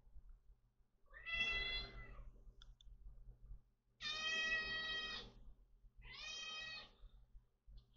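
A house cat meowing three times, the middle meow the longest and the last one fainter: a hungry cat calling to be fed.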